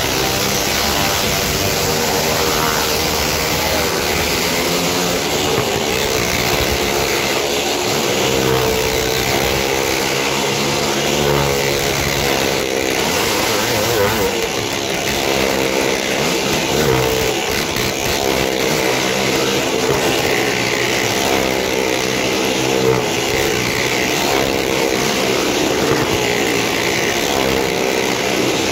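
Several car and motorcycle engines running and revving together as the vehicles circle the wooden wall of a well-of-death drum: a continuous, loud mix of engine notes whose pitches keep rising and falling against one another.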